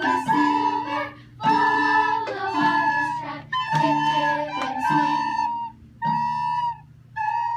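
Children playing recorders together: a simple tune of short and held notes over a lower accompaniment. The accompaniment drops out about six seconds in, and the recorders finish on two lone held notes.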